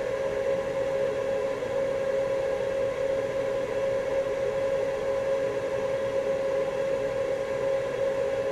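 Steady machine hum with one constant mid-pitched tone over a light hiss, unchanging throughout.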